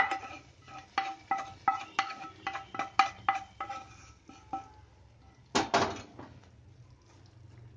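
Rapid metallic taps on a small frying pan, about three a second, each with a short ring, as the fried tempering (tadka) is knocked out of it into the kadhi. Two louder knocks follow a little after five seconds.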